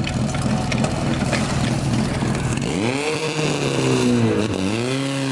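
Portable fire pump engine running hard during a firefighting-sport attack. About halfway in its revs climb, dip once briefly and come back up to a steady high note.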